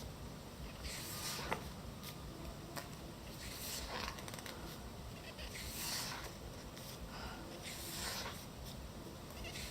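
Pages of a thick photo magazine being turned, a soft paper swish about every two seconds, with a couple of light clicks.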